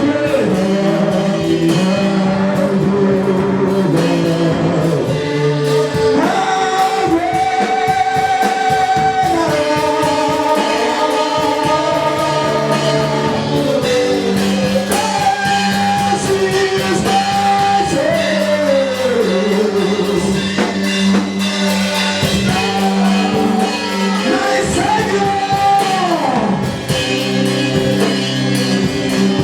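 Live gospel worship song: a lead singer holding long notes that slide up and down between phrases, over steady band accompaniment with guitar.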